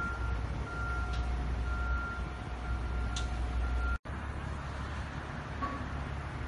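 Caterpillar 140H motor grader's diesel engine idling with a steady low rumble, while a backup alarm beeps about once a second. The beeping stops at an abrupt cut about four seconds in, where the sound drops out for an instant, and the idle carries on.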